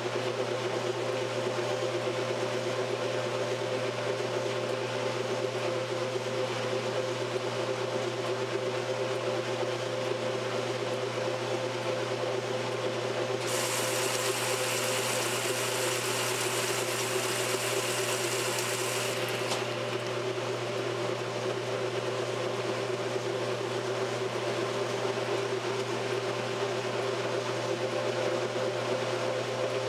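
1968 Kenmore top-loading washer agitating a load of clothes in water, a steady machine hum. About halfway through, a high hiss joins for around six seconds, then cuts off.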